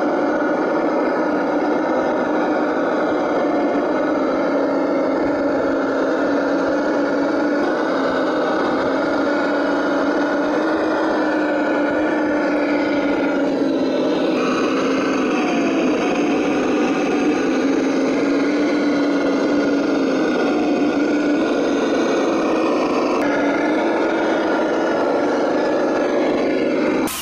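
Scale RC Land Rover Defender crawler's electronic V8 engine sound module playing a steady engine drone, drifting slightly up and down in pitch, with abrupt changes in tone a few times.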